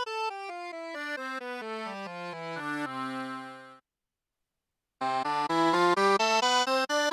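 Tianshuo digital accordion sounding its right-hand accordion voices: a line of sustained reedy notes stepping down in pitch to a held final note, then a second of complete silence. About five seconds in, a brighter, louder accordion voice starts a quick run of notes.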